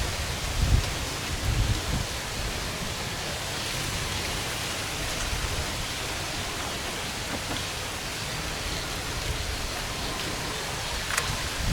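Steady outdoor hiss, with a few low thumps in the first two seconds and a short sharp click near the end.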